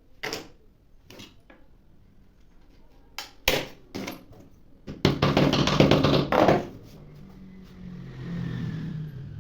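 Workshop tool sounds on wood: several separate sharp knocks, then a loud rough burst of noise for about a second and a half with a low hum in it, followed by a quieter low hum.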